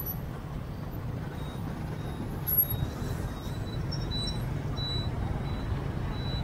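Steady rumble of a motorbike riding in city street traffic, with a brief sharp noise about two and a half seconds in.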